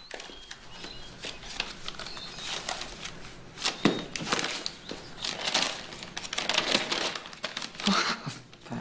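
Paper rustling and crinkling as a small notebook's pages are handled and a folded sheet of paper is pulled out and unfolded, with a sharper crackle about four seconds in.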